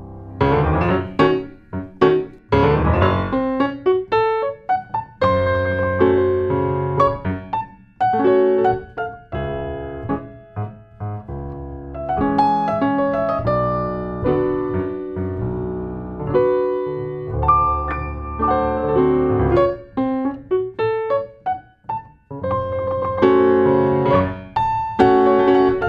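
Piano music: a run of quick notes and chords, each struck and then fading.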